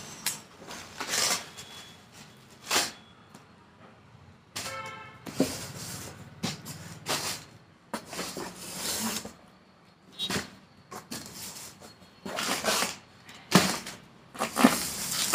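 A cardboard shipping box being opened and handled: irregular scraping, rustling and knocks of cardboard and packaging, with a brief squeak about five seconds in.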